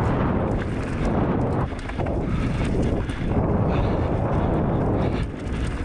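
Heavy wind rumble buffeting an action camera's microphone as an enduro mountain bike rolls fast down a dry dirt trail, with tyre noise on the gravelly surface and scattered knocks and rattles from the bike.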